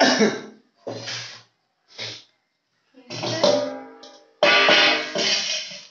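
Music with drums and cymbals: a few short crashing hits with dead silence between them, then from about three seconds in a longer passage with held pitched notes over the drums.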